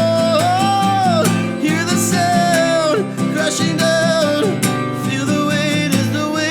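Christian pop song: strummed acoustic guitar under a sung melody of long held notes that glide between pitches, with no clear words.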